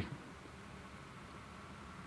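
A pause with no speech: only a faint, steady background hiss.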